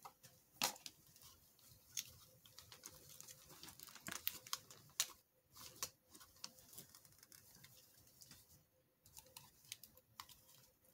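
Faint handling noise from a small cosmetic cream container and its packaging being handled and tried open: scattered, irregular clicks and short rustles.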